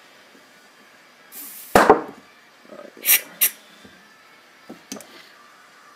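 Short blasts of compressed air at about 50 psi from a blow gun into a brake caliper, to force its stuck pistons out. The first hiss ends in a loud sharp knock about two seconds in, followed by two more brief blasts and a couple of light clicks.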